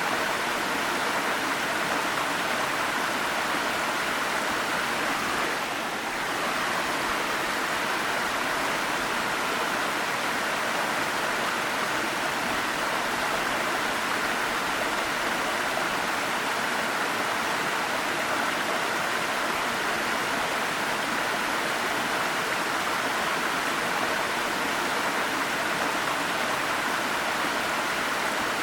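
Waterfall: a steady, even rush of falling water, dipping slightly for a moment about six seconds in.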